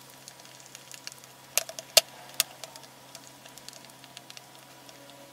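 Microfiber cloth rubbing over a glass screen protector on a phone, with a faint patter of small clicks and a few sharper clicks about two seconds in.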